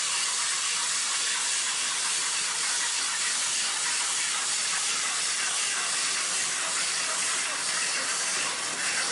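A steady, even hiss, mostly high-pitched, holding the same level throughout and fading just before the end.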